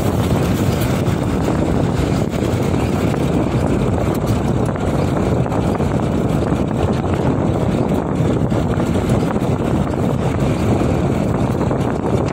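Sonalika DI 35 tractor's diesel engine running steadily under way, heard from on board.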